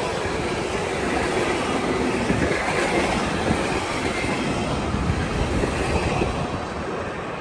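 Container freight train's wagons rolling past at speed: a steady noise of wheels running on the rails, easing slightly near the end.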